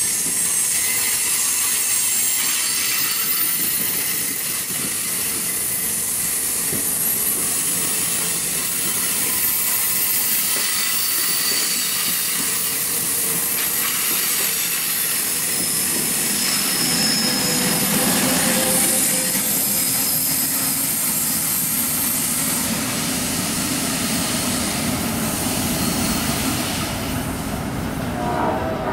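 New Jersey Transit Multilevel bi-level passenger cars rolling past close by as the train pulls out, the wheels running on the rails with thin, high squeals over a steady rumble. The highest squeals die away near the end as the last car draws off.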